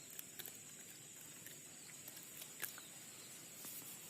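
Quiet outdoor background with a steady high-pitched buzz, broken by a few faint clicks.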